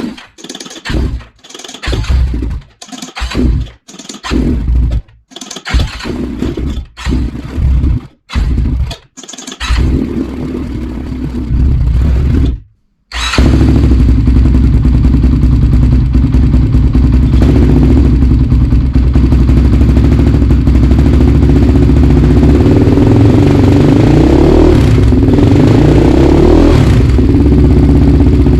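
Honda 400EX quad's single-cylinder four-stroke engine being started on a new battery: short choppy bursts broken by abrupt gaps, then the engine runs steadily at idle for the second half, with the revs swelling for a few seconds near the end.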